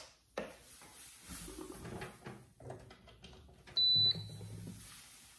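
Soft handling noises, then a portable electric cooktop's control panel gives one short, high, steady beep as it is being switched on.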